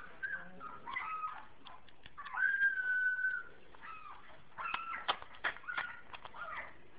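Young Great Pyrenees–Standard Poodle cross puppies whining in high-pitched squeaks while eating soft food, one long whine about two and a half seconds in and a run of short squeaks and wet clicks of eating near the end.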